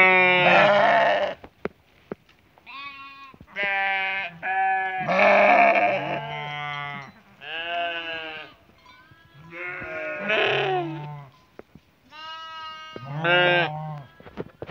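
Sheep bleating: a string of calls from several animals at different pitches, some overlapping, each lasting about half a second to a second and a half.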